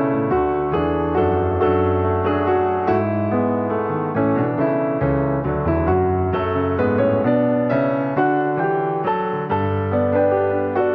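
Soft piano music, notes struck in a steady flowing pattern.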